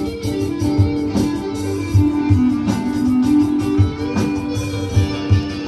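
Guitar-led music with a steady drum beat.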